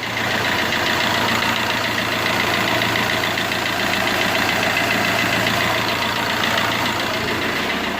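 Tata Manza's 1.3-litre Quadrajet four-cylinder turbo-diesel idling steadily with a light diesel clatter. The valvetrain is freshly rebuilt with a new exhaust camshaft, hydraulic lash adjusters and timing chain, and the idle sounds clean and normal.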